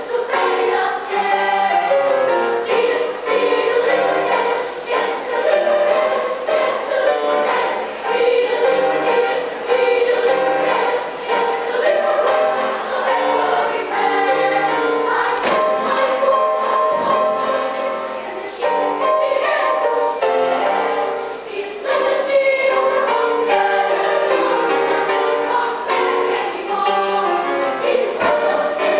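A children's choir singing in several parts, loud and continuous.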